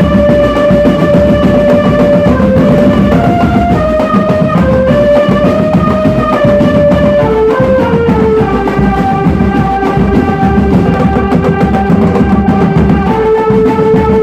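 Drum band playing: a melody of long held notes that steps up and down in pitch, over dense steady drumming.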